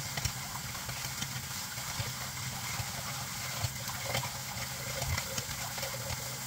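Steady hiss of water at a sink, with a few light clicks and knocks as the wet plastic fan grille and blade are handled and stood up to drip.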